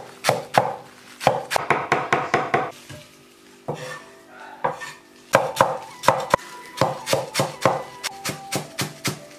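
Chinese cleaver chopping wild onions on a thick wooden chopping block: rapid runs of sharp chops, with a short pause about three seconds in.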